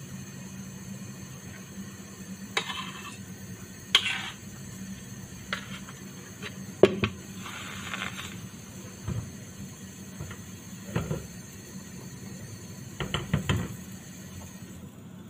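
Scattered clinks and knocks of kitchen dishes and utensils, about a dozen in all with a brief scrape about eight seconds in, over a steady low hum, as pancake batter goes into a non-stick frying pan on a gas stove.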